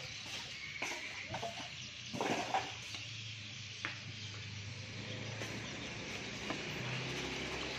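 Steady hiss of room noise with a few light knocks and scrapes as tall speaker cabinets are handled and set in place, and a low hum in the background.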